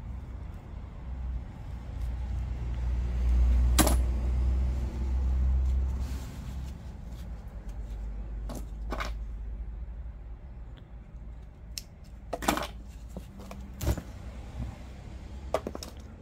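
Handling noise of welding-cable and electrode-holder work: a low rumble in the first few seconds, then scattered sharp clicks and light metallic clinks of small holder parts and the cable cutter on a wooden bench.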